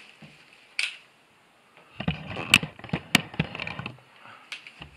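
DonJoy knee brace being handled and pulled up the leg: a short scrape about a second in, then a couple of seconds of rustling straps and padding with several sharp clicks from the brace's frame.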